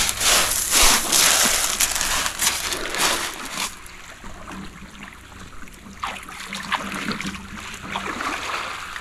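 Small waves lapping and washing over a pebble shore, a loud hiss for the first few seconds, then quieter with a few short clicks and small splashes.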